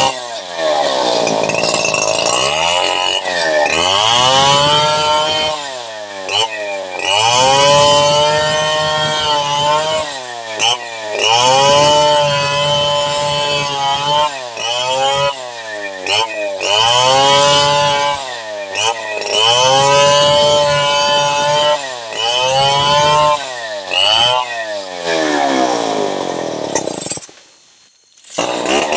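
Stihl 070 two-stroke chainsaw cutting through a log: the engine revs up and drops back every few seconds as the chain bites into the wood. Near the end the sound falls away briefly.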